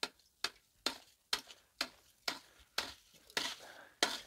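Ice axe chipping at ice frozen around a bicycle's rear wheel: a steady run of sharp strikes, about two a second.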